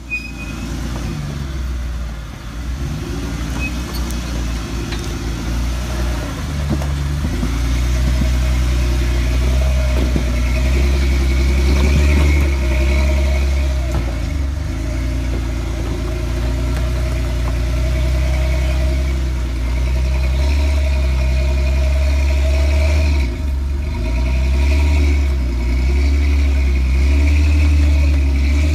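Willys jeep engine running at low revs under load while crawling over rock ledges. The revs rise and fall as the throttle is worked.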